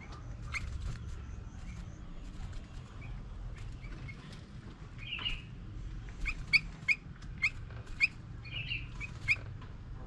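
Small songbird chirping outdoors: scattered calls at first, then a run of short, sharp chirps about two a second in the second half, with a couple of warbled notes, over a low background rumble.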